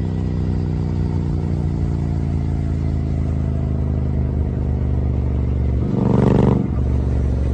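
Royal Enfield Bear 650's 648 cc parallel-twin engine idling steadily through its exhaust, with one brief throttle blip about six seconds in.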